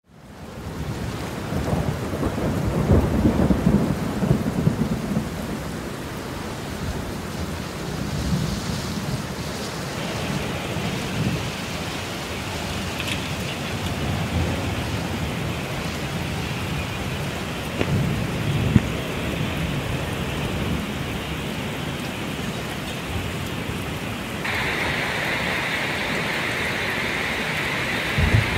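Thunderstorm: steady rain with thunder rumbling, loudest a few seconds in. The rain hiss turns brighter and louder near the end.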